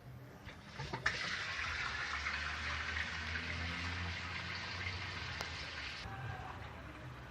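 Water gushing in a Mueller Plus washing machine. It starts with a click about a second in and cuts off suddenly about five seconds later, over a steady low hum.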